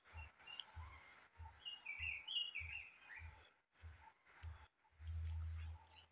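Birds chirping, over a faint regular low thumping about one and a half times a second that becomes a brief low hum about five seconds in.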